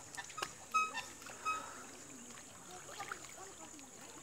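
Faint outdoor ambience: a few short, high chirps in the first second and a half over a steady high hiss.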